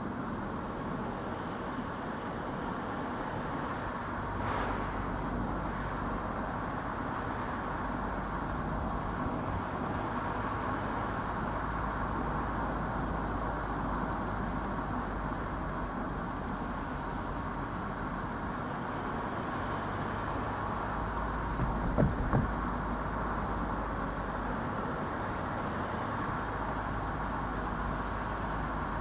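A car driving along a road: steady tyre and engine noise, with a couple of short knocks about three-quarters of the way through.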